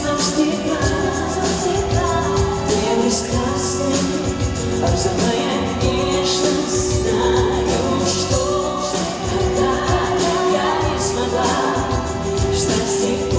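Pop song played live by a band with a steady drum beat and a long held note, with singing over it.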